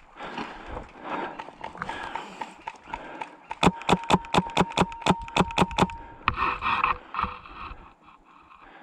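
Airsoft gun firing a quick string of about a dozen sharp shots, roughly five a second, for about two and a half seconds.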